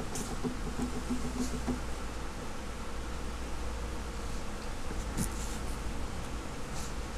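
A steady low buzzing hum, with a few faint clicks about a second in and around five seconds in.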